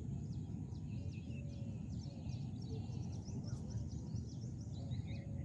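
Small birds chirping and trilling, many short calls scattered throughout, over a steady low outdoor rumble.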